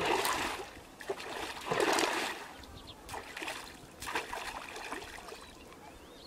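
Splashing in shallow muddy water as a wading man sweeps a pole through it and reaches in by hand: about five separate splashes a second or so apart, the loudest at the start and about two seconds in.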